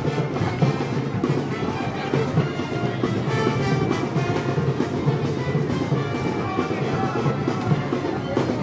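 A Moros y Cristianos festival band playing live, with drums, in a steady stretch of music.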